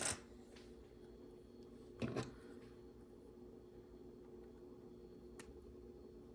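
Quiet handling of small LEGO pieces and a sticker sheet: a click at the start, a brief rustle about two seconds in and a faint tick later, over a steady low hum.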